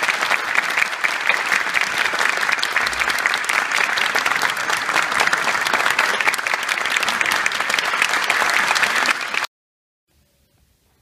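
Audience applauding a choir, a dense clatter of many hands clapping in a concert hall. It cuts off suddenly about nine and a half seconds in, leaving near silence.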